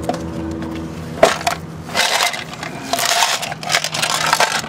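Tape and a strap being pulled off a lawnmower wheel: a sharp click, then crackling and ripping noise in two stretches. A low steady hum dies away about a second in.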